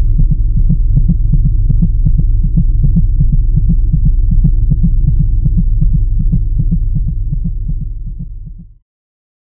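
Heartbeat sound effect: loud, regular muffled pulses over a deep underwater-like rumble, with a thin steady high tone above. It fades over its last second and cuts off about a second before the end.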